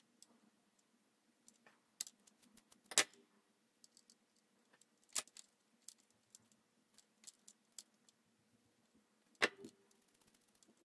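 Scattered faint clicks and taps of wires, crimp connectors and a screwdriver being handled on a small timer relay board over a clear plastic container, with a few sharper clicks, the loudest about three seconds in.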